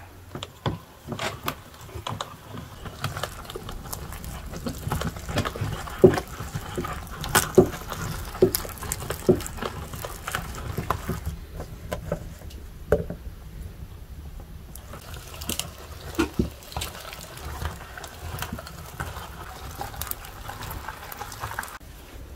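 Hand-cranked metal meat grinder turning, mincing dried apricots: an irregular run of clicks and knocks from the crank and auger as the fruit is forced through the plate, with the sharpest knocks through the middle.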